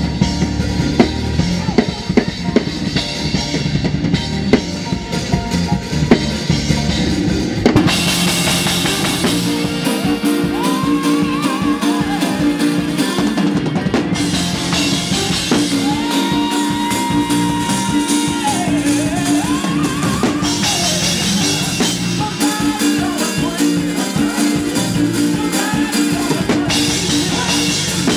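Up-tempo church shout music driven by a drum kit with Zildjian cymbals, played hard in a dense, fast run of snare, bass drum and cymbal strokes. The cymbals grow louder about eight seconds in, and a held melodic instrument line joins the drums a couple of seconds later.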